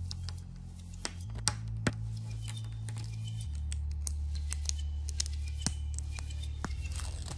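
Small plastic building bricks clicking and snapping as they are pressed together and handled: many quick, sharp clicks, with a low steady drone underneath that changes pitch twice.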